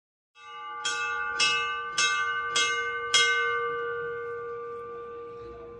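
A hanging brass temple bell is struck five times in quick succession, about a strike every half second, then left ringing and slowly fading. It is rung by a devotee during worship at the shrine.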